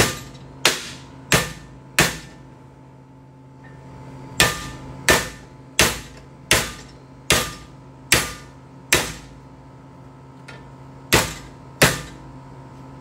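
Hammer blows striking a laser-welded steel joint to test its strength: four blows, a pause, seven more, then two, each a sharp metallic bang with a short ring. The weld holds without opening.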